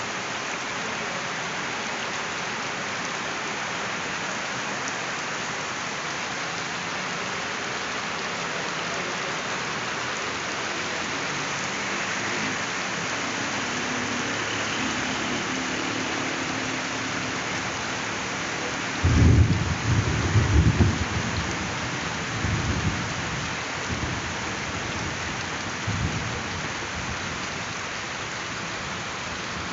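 Steady, heavy rain hiss throughout. About two-thirds of the way in, a sudden loud thunderclap breaks in, followed by several weaker rumbles that die away over the next several seconds.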